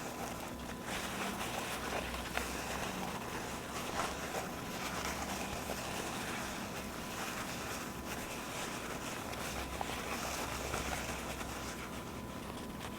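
Paper towels being handled and torn close to the microphone: a continuous soft rustling and crinkling, dotted with small crackles.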